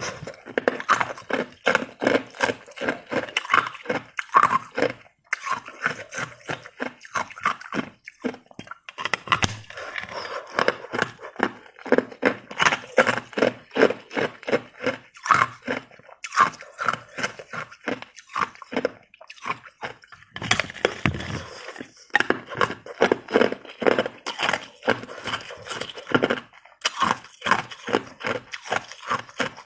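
Ice being chewed: rapid crisp crunches, several a second, in runs broken by a few short pauses.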